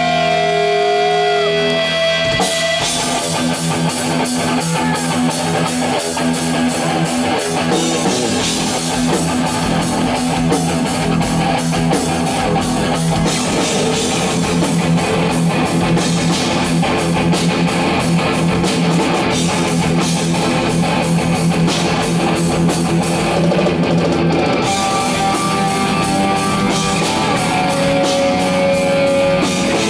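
Live heavy metal band: distorted electric guitars, bass and drum kit, played loud. A lead guitar holds bent notes at first, then the full band comes in about two and a half seconds in. Near the end, long sustained lead guitar notes ring over the band.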